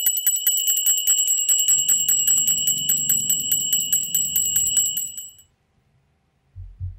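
Altar bells shaken rapidly, about seven strokes a second, ringing for the elevation of the chalice at the consecration; the ringing stops about five seconds in, and a brief low thump follows near the end.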